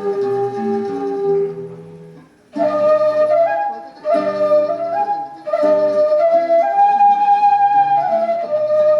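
Quena (Andean flute) playing a melody over a lower accompaniment. The music drops out briefly about two and a half seconds in, then the flute line resumes.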